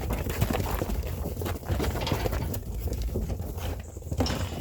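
Sheep hooves clattering and scuffling in a pen as hoggets are caught by hand, many irregular clicks and knocks over a steady low rumble.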